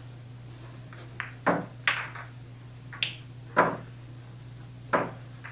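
Pool balls knocking as they are set out on the table by hand: six or seven sharp, irregularly spaced clacks, with a steady low hum underneath.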